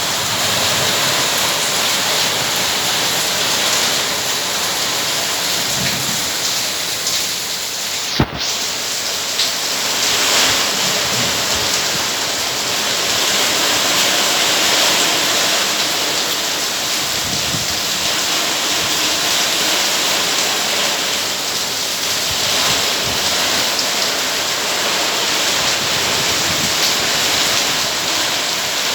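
Heavy rain pouring steadily in strong wind, a dense, even hiss. There is a single sharp crack about eight seconds in.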